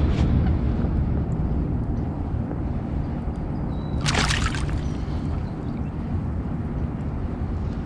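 Water sloshing with a short splash about four seconds in, over a steady low rumble.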